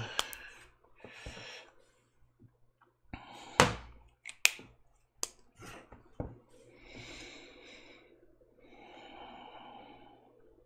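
Scattered sharp clicks and knocks as a small painted panel is handled on a wooden desk and a paint marker is uncapped. Then two soft breaths, about seven and nine seconds in.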